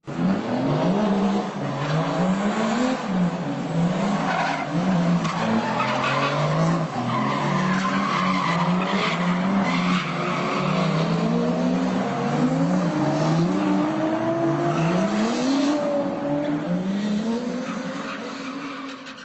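Drift car being driven, its motor revving up and down over and over with tyre skidding, the pitch rising and falling every second or two.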